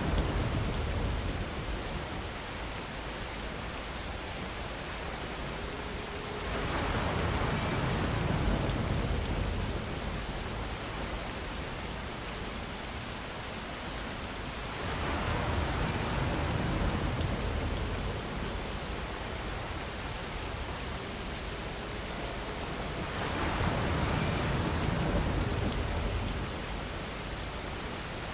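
Steady rain hiss. A low rumble swells and fades about every eight seconds, four times in all.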